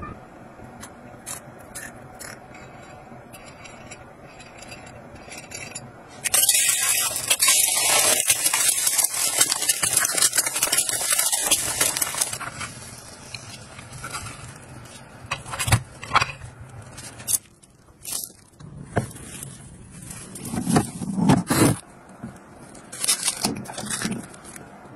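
Kitchen gadgets being handled: light clicks and taps of plastic and glass. For about six seconds in the middle a loud hiss and crackle runs, like eggs sizzling in a hot oiled pan. Then come scrapes and knocks, and near the end a few sharp taps like an eggshell being cracked.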